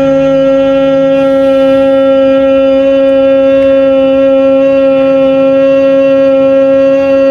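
Bhramari pranayama (bee breath): a woman humming one long, steady 'mmm' with closed lips on a slow out-breath, like the buzz of a bee.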